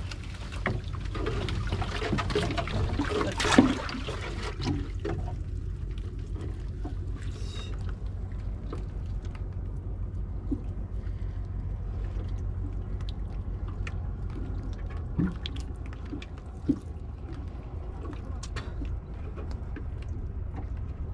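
Water splashing, trickling and dripping as a wet nylon fishing net is hauled over the side of a small boat, with knocks against the hull. It is busiest in the first few seconds, then thins to scattered drips and clicks over a steady low rumble.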